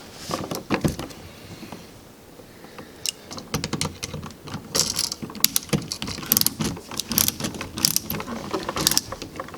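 A screwdriver driving the mounting screws of a wall switch into its electrical box: a run of quick, irregular small metallic clicks and rattles, thicker from about three seconds in.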